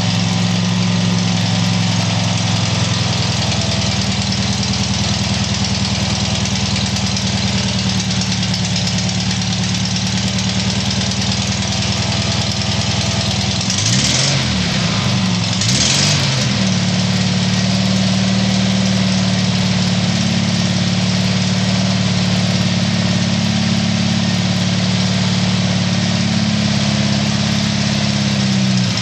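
Freshly rebuilt Volkswagen air-cooled flat-four engine idling steadily on a test stand, revved briefly twice about halfway through before settling back to idle.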